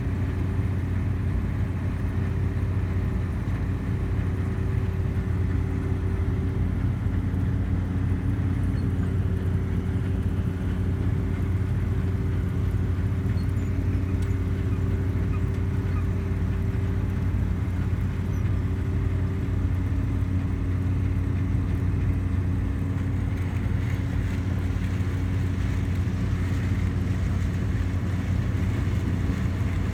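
Combine harvester running steadily while harvesting corn, heard from inside the cab: an even machine drone with a strong low hum and a few fainter higher tones.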